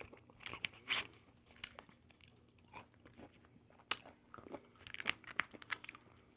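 Close-up crunching and chewing of honey walnut shrimp and its candied walnuts, a scatter of small crisp clicks with one sharper crunch about four seconds in.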